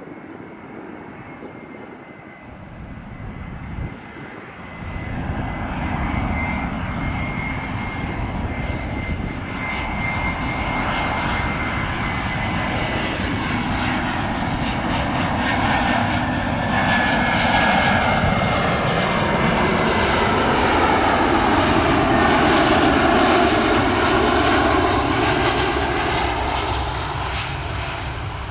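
Airbus A319 jet airliner arriving, its engine noise building as it approaches and passes, then easing slightly near the end. Whining engine tones slide down in pitch as it goes by.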